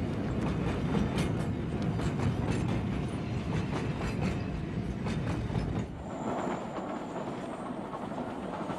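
Train running on rails, heard from inside a passenger carriage: a steady rumble with the wheels clattering over the rail joints. After about six seconds the sound turns a little softer and less bassy.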